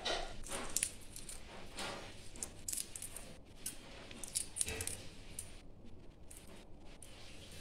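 Shell being peeled by hand off a hard-boiled egg: irregular small crackles, clicks and rubbing as pieces of shell break away.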